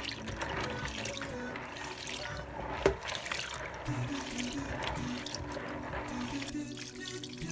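Split chickpeas (chana dal) being swished and rubbed by hand in a bowl of water to wash them: irregular sloshing and splashing of water and grains, with one sharp knock about three seconds in.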